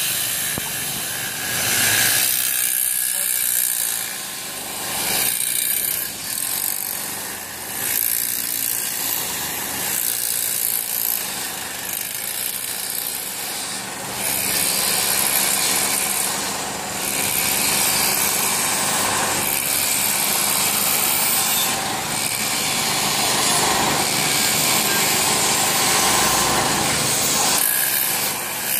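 A corded electric power tool, fed from a portable generator, running in long stretches during fence installation, over passing street traffic. It runs more steadily from about halfway through.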